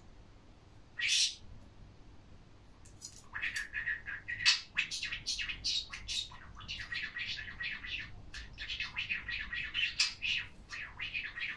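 A pet budgerigar calling. One sharp chirp comes about a second in, then from about three seconds on a long run of rapid, chattering warble.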